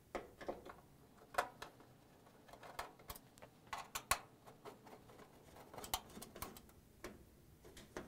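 Faint, irregular clicks and light ticks of a Torx 20 hand screwdriver turning out the console screws on top of a dryer, with the metal screws rattling as they come loose.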